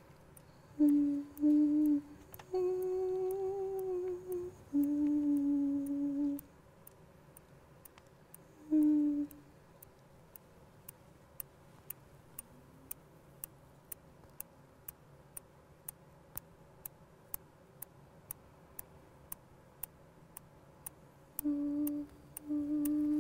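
A woman humming a slow, wordless tune in short held phrases, with a long pause in the middle. A steady soft ticking, about two a second, runs underneath and is plainest in the pause.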